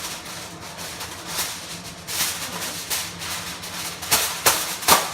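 Aluminum foil being pulled off the roll and crinkled, a continuous rustle with sharp crackles about two seconds in and three more near the end.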